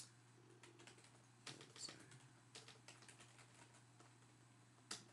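Faint computer keyboard typing: short runs of keystrokes with pauses between them, as a web address is typed into the browser.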